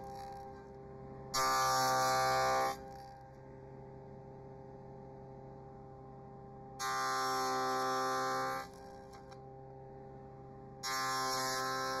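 Table saw with a stacked dado set running, cutting box-joint notches in the end of a wooden board: three passes, starting about one, seven and eleven seconds in. Each cut is a louder whine with a hiss, dropping back to the saw's steady hum between passes.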